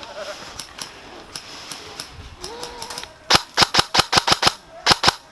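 Airsoft guns firing. Faint scattered shots come first, then a quick string of about eight loud, sharp shots a little past halfway, and two more near the end.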